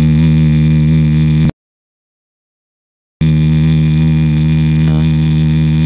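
Loud, steady electrical hum with a stack of evenly spaced overtones. It cuts out to dead silence for about a second and a half, then comes back unchanged.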